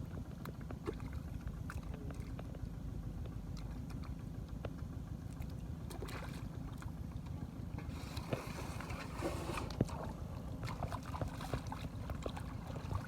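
Shallow water splashing and sloshing over a steady low rumble, with scattered small knocks. The heaviest splashing comes about eight to ten seconds in.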